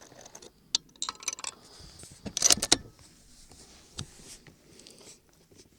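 Metallic clicks and clatter from working the bolt of a Savage Model 10 BA Stealth .308 bolt-action rifle: a few light clicks, a louder rattling clatter about two and a half seconds in, then a single click at about four seconds.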